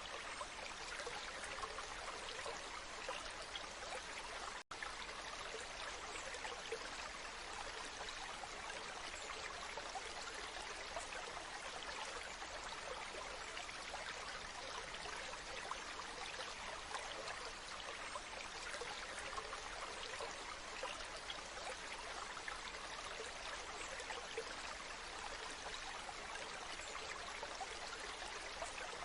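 Waterfall: a steady rush of falling, splashing water, with a split-second gap about five seconds in.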